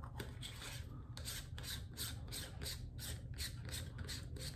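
Threads of a Vivitar 0.43x wide-angle converter lens being screwed by hand, its macro element twisting against the main barrel: a light, even rasping of short strokes, about four or five a second.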